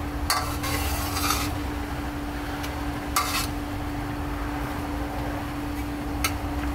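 Metal spatula scraping and stirring a simmering, thickening sauce in a stainless steel wok: short scrapes in the first second and a half, again about three seconds in, and once near the end. A steady low hum runs underneath.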